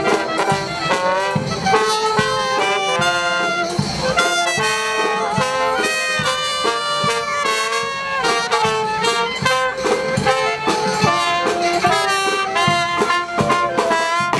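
Brass street band playing, with trumpets and trombones over drums.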